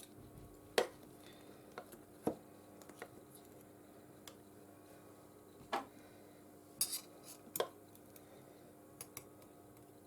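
Small metal repair tools clicking and tapping against a phone's parts during reassembly: about a dozen sharp, irregular clicks over a faint steady hum.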